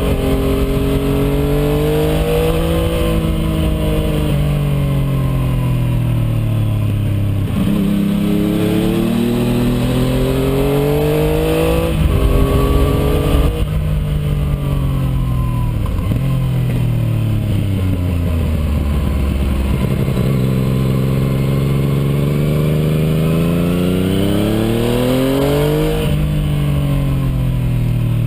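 Yamaha MT-09's inline three-cylinder engine running through an IXIL Hyperlow aftermarket exhaust while the bike is ridden: the note rises through the gears with drops at each shift, then falls away as it slows, several times over.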